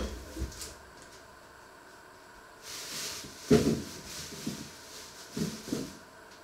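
Kitchen handling noises: a few separate knocks and clunks of things being moved and set down on the counter, with a short rustle about two and a half seconds in, just before the loudest knock.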